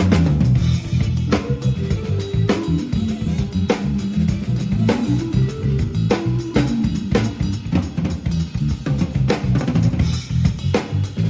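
A rock band playing: a drum kit with snare and bass drum keeps a busy beat over a moving bass guitar line.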